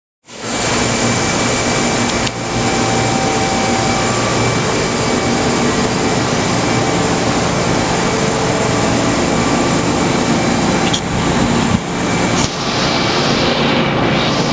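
Mori Seiki SH-400 CNC horizontal machining center running under power: a loud, steady mechanical noise with a few faint steady tones, starting abruptly just after the start. Sharp clicks come about two seconds in and again a few times near the end.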